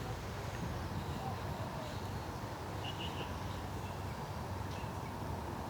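Steady outdoor background noise with a low rumble, and a brief high chirp about three seconds in.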